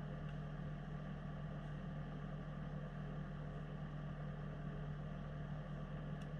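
An engine running at a steady speed, a constant drone that holds the same pitch throughout.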